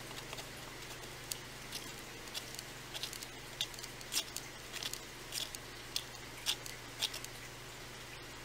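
A stir stick stirring tinted casting resin in a mixing cup, ticking and scraping against the sides in a dozen or so small irregular clicks that stop about seven seconds in, over a low steady hum.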